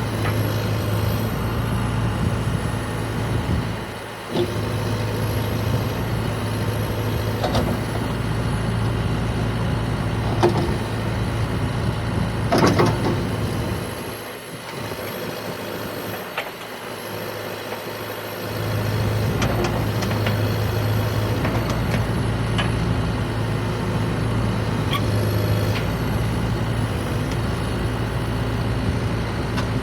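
Diesel engine of a 2018 John Deere 310L EP backhoe running steadily, going quieter for a few seconds about halfway through before picking back up. A few sharp knocks and clanks come through over it, the loudest a little before the middle.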